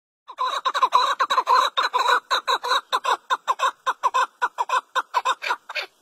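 Chukar partridge calling: a fast, even run of short, downward-sliding notes, about five a second, that stops abruptly just before the end.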